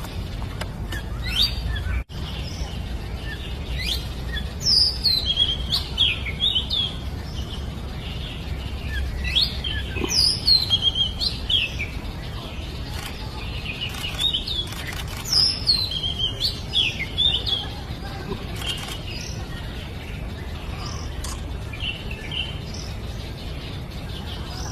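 Oriental magpie-robin singing: bursts of loud, varied whistled phrases made of quick rising and falling notes, with pauses between them, turning to softer scattered notes in the second half. A steady low rumble runs underneath, and the sound cuts out for a moment about two seconds in.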